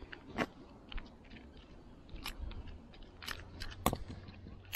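Irregular small clicks and scrapes of a micro screwdriver tip on the metal parts of a spincast reel as a brass shim washer is pried off its shaft, with one sharper click near four seconds in.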